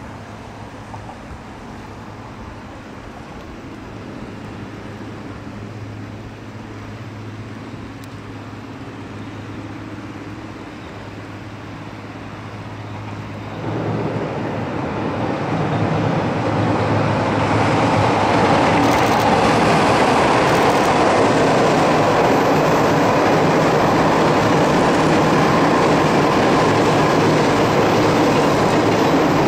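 Approaching freight train, an EF66 electric locomotive hauling container wagons: a steady low hum at first, then about halfway through the noise jumps up suddenly and builds over a few seconds into a steady loud rumble.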